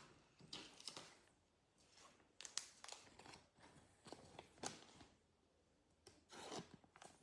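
Faint rustling and soft ticks of a trading card and a plastic card sleeve being handled, in several short clusters.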